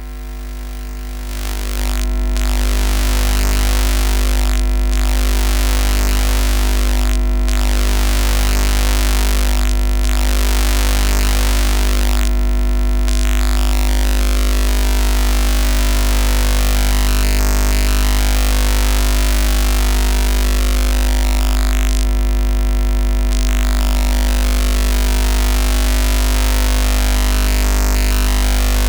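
Synthetic electronic interference sound effect: a loud, heavy low hum under a harsh, dense buzzing whose pattern shifts every two to three seconds at first, then in longer stretches. It swells in over the first couple of seconds.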